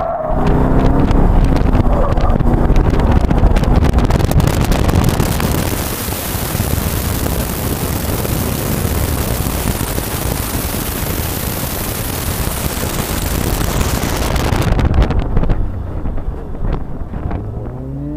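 Corvette Z06's V8 engine running hard under heavy wind rush on an outside-mounted camera during an autocross run. About fifteen seconds in the wind noise falls away and the engine drops to a lower, quieter running as the car slows.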